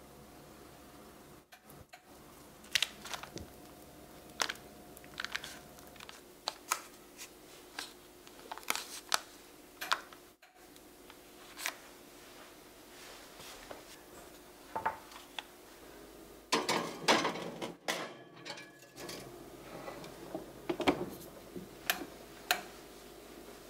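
Spatula spreading thick brownie batter across a parchment-lined metal baking pan: a series of short, sticky scrapes and taps, with a denser, louder run of knocks and scrapes about two-thirds of the way through.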